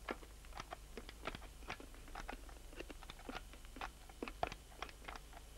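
Typing on a computer keyboard: quick, uneven keystrokes, several a second.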